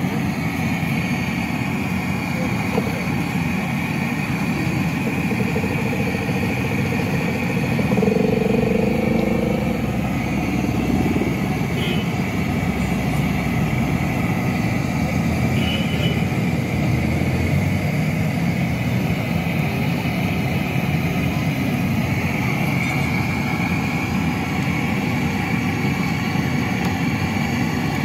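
Street traffic with motorcycles and cars running steadily, mixed with the hiss of pakoras deep-frying in a large karahi of oil. Something passes louder for a moment about eight seconds in.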